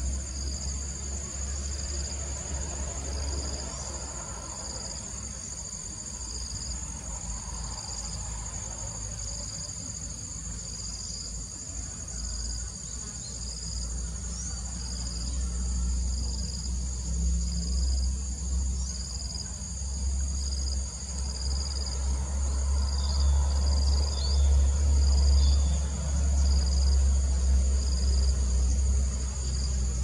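Chorus of insects trilling: one high, steady buzz and a second that pulses on and off at a regular beat. Under it runs a low rumble that grows louder through the second half.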